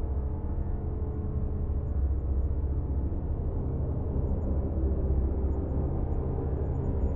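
A low synthesizer note held as a dark suspense drone, steady and deep with a faint rumbling texture.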